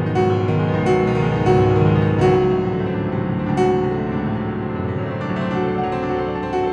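Solo piano playing slow music, ringing chords with new notes struck about every second.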